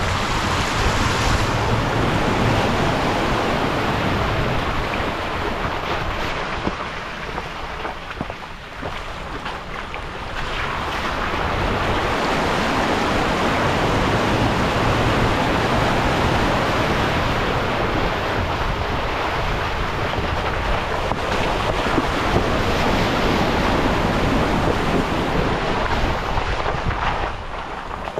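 Front tyre of a 5th-gen Toyota 4Runner ploughing through deep muddy puddles, water rushing and splashing up against the body, with wind on the microphone. The splashing dips briefly around eight seconds in, surges again for a long stretch, and eases off near the end as the truck reaches shallower gravel.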